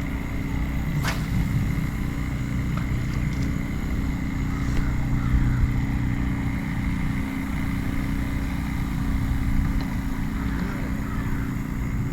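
An engine running steadily, a low droning hum with a faint high whine over it. One sharp click about a second in.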